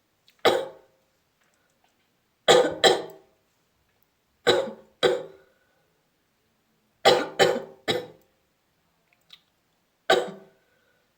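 A person coughing on purpose in short, sharp coughs: one cough, a quick pair, two single coughs, a run of three, then one more, with silence between them.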